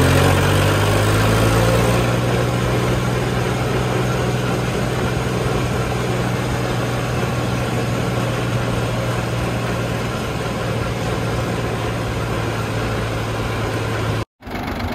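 Mahindra B-275 DI tractor's three-cylinder diesel engine running steadily under way, heard from the driver's seat. The sound cuts out for a moment near the end.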